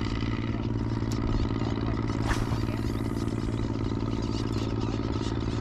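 A steady engine or motor drone at an even low pitch, not changing, with a brief noise about two seconds in.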